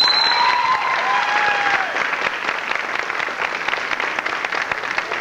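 Audience clapping and cheering, with a few whoops in the first two seconds; loudest at the start and easing off slowly.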